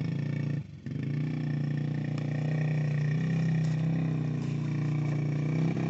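Yamaha TT-R50 mini dirt bike's small single-cylinder four-stroke engine running at a steady pitch, with a brief dip in sound just under a second in.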